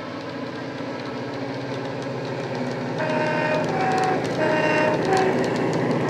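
Dapol Class 68 model locomotive's DCC sound, a Coastal DCC Class 68 sound file played through an EM2 speaker. The diesel engine runs with a bass-heavy rumble that grows louder as the model approaches. About halfway through, the horn sounds in short blasts that alternate between a low and a high note.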